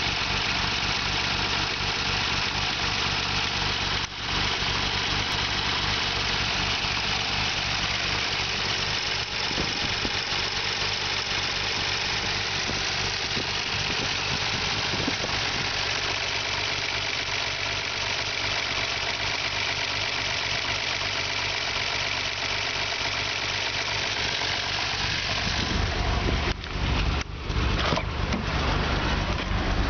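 Nissan Skyline R32 GT-R's RB26DETT twin-turbo straight-six idling with a lumpy, uneven beat and a slight misfire. The sound changes in the last few seconds, with several brief drops in level.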